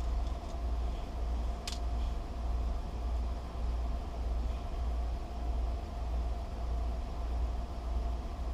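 Steady low background hum with a faint steady tone above it, and a single light click about two seconds in: a small brass key pin dropped into its hole in the lock cylinder.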